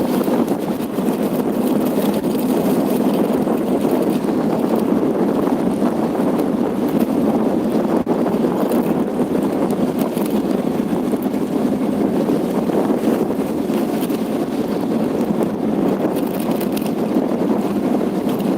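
Steady rushing noise of travel: wind on the microphone over a running vehicle, unbroken and even in level.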